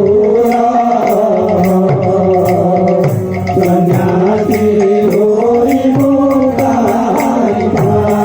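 Live kirtan music: a sustained melody line over a hand drum whose bass strokes slide downward in pitch, with steady metallic cymbal strikes keeping the beat.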